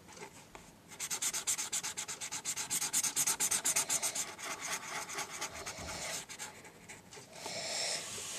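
Pen scribbling on paper, colouring in a shape with rapid back-and-forth strokes, about eight a second. The strokes start about a second in, thin out midway, and become a steadier scratch near the end.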